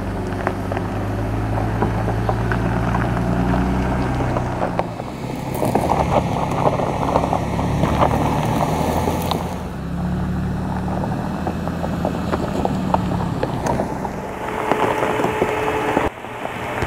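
Toyota Tundra TRD Pro's 3.4-liter twin-turbocharged V6 hybrid running at low revs as the pickup crawls over a rocky dirt trail, with tyres crunching over gravel and stones. The crunching is loudest about halfway through and again near the end.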